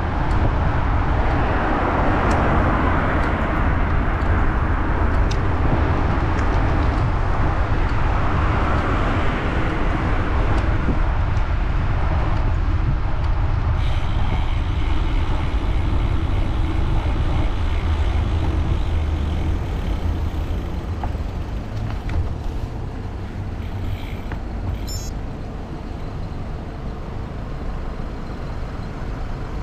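Road traffic heard from a moving bicycle, with wind rumbling on the microphone; a vehicle passes loudly in the first ten seconds, then the traffic noise eases.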